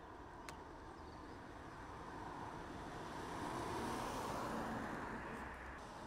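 A BMW 2 Series Gran Coupe driving past, its tyre and engine noise swelling as it approaches, loudest about four seconds in, then falling away. There is a brief click about half a second in.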